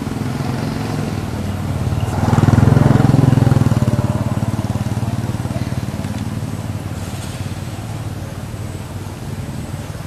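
A motor vehicle's engine running nearby, swelling loudest about two seconds in and then slowly fading, as when it passes by.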